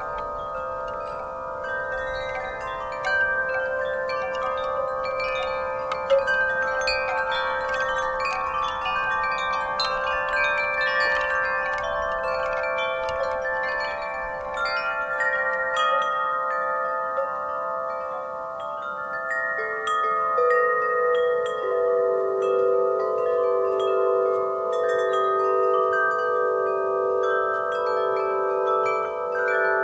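Wind chimes stirred by a breeze, frequent light strikes overlapping into a long-ringing chord. About two-thirds of the way in a lower chime starts ringing and holds on with a slow waver.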